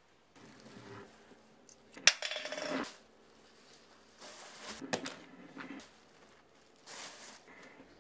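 A plastic carrier bag rustling and small objects clinking as things are handled and put into it, in three bursts: a sharp click about two seconds in opens the loudest one.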